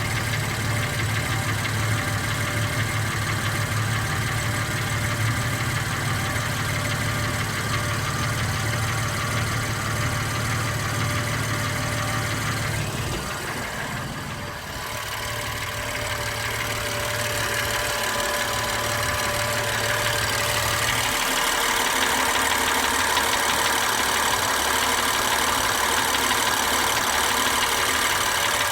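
2016 BMW M3's S55 twin-turbo straight-six idling steadily, with a noise the owner takes for engine knock. The sound dips briefly about halfway through, then runs on a little louder.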